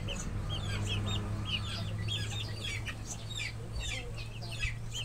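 A pen of young chicks peeping and chirping, many short high calls overlapping continuously, over a steady low hum.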